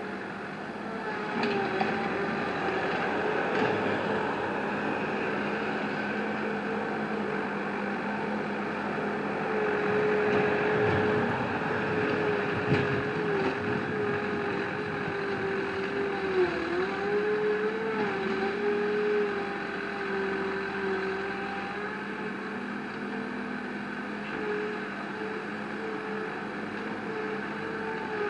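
Machinery engine running steadily with a droning whine that wavers and dips briefly in pitch a few times, most clearly about sixteen seconds in, as the machine takes load.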